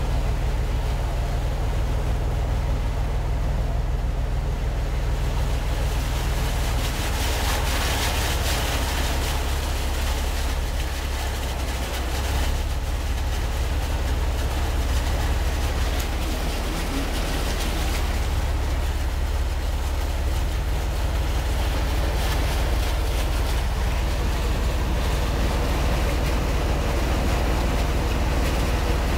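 A vehicle driving through floodwater, heard from inside the cab: its engine and running noise give a steady low hum, with water splashing and hissing around the wheels that swells for a few seconds about a third of the way in and again past the middle.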